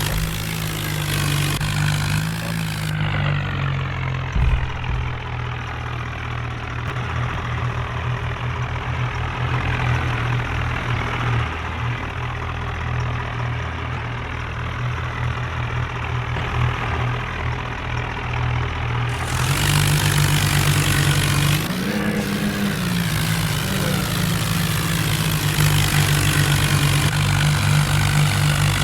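Swaraj 855 FE tractor's three-cylinder diesel engine running steadily, its pitch dropping about three seconds in and rising again about twenty seconds in, with a brief dip soon after.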